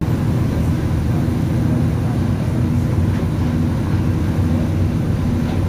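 Riverboat's engine running aboard the vessel, a steady low drone with a constant pitch.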